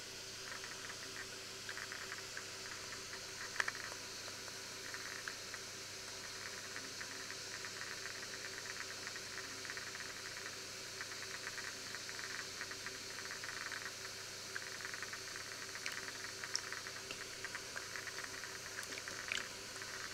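Thin stream of milk poured into a steel bowl of flour, a steady fine crackling patter as the liquid soaks into the powder. A faint steady hum sits underneath, and there is a single sharp click a few seconds in.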